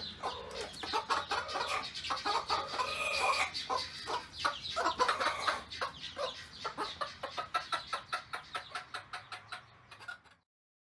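Mother hen clucking while her young chicks cheep in quick, high calls around her; the sound cuts off suddenly near the end.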